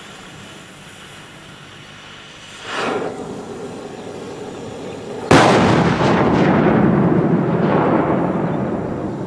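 A large firework exploding: a softer burst about three seconds in, then a sharp, loud bang just past five seconds, followed by a long rumbling echo that slowly fades.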